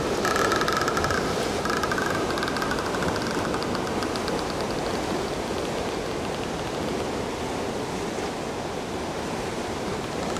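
Sea surf washing over rocks: a steady rushing noise, with a faint high tone over the first few seconds.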